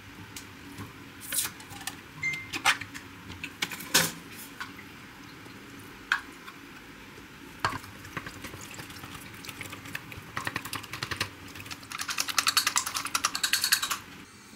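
Scattered light clicks and knocks of small objects being handled, then a fast run of clicking for about two seconds near the end.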